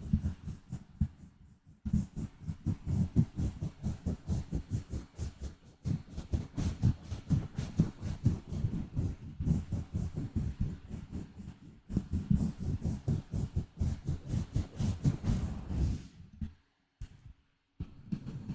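Gentle scratching on a microphone in quick, rapid strokes, several a second. It comes in runs broken by brief pauses, with a longer pause near the end.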